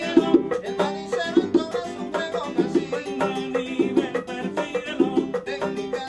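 Cuban son music played on acoustic guitar and bongos: a strummed, plucked guitar over a steady hand-drum rhythm.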